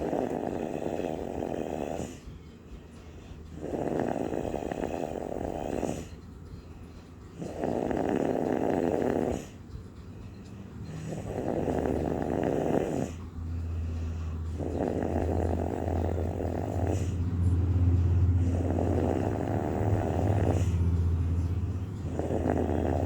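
A person snoring: seven rasping snores, each about two seconds long, one every three to four seconds. About halfway through, a steady low hum sets in underneath.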